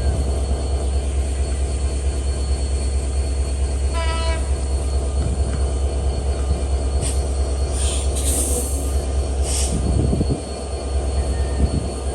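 A train running, a heavy steady rumble throughout. A brief high tone sounds about four seconds in, and a few hissing, screeching bursts come near the end.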